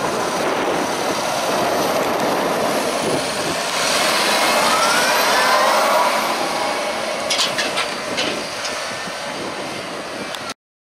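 Fendt 724 Vario tractor's six-cylinder engine working under load as it pushes grass with a front buckrake, with a rising whine that peaks about five seconds in and a few metallic clanks near the end. The sound cuts off suddenly just before the end.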